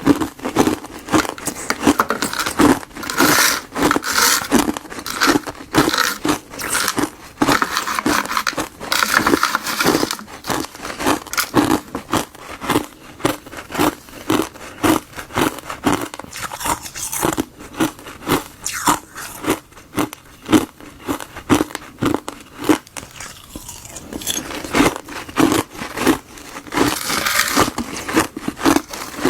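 Frozen tartary buckwheat and gardenia tea ice being crunched into granules: a steady run of crisp crunches, about one and a half a second, with crackling between them.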